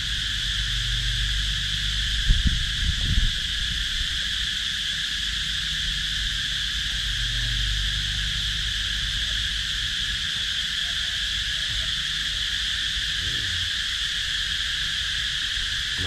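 Steady shrill insect chorus, two high pitches held without a break, over a low rumble, with a few knocks about two to three seconds in.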